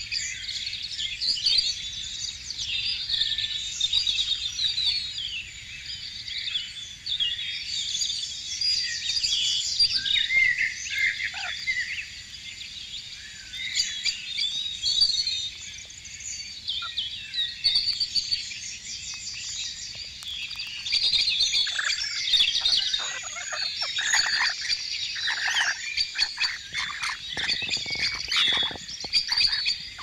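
A flock of birds chirping and chattering without pause, with louder, harsher screeching calls from about two-thirds of the way through.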